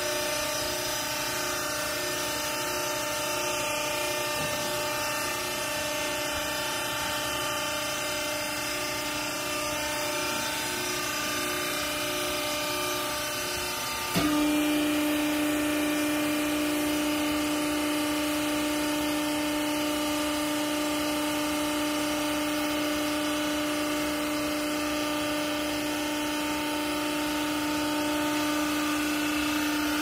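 Hydraulic power unit of a vertical clothing baler running with a steady hum. About halfway through it suddenly grows louder with a slightly lower steady whine, the pump coming under load as the ram drives the press plate down onto the clothes.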